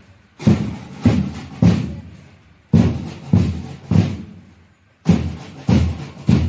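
Heavy, sharp thumps beating a rhythm in groups of three, about 0.6 s apart, with a short pause between groups, as in a marching drill beat.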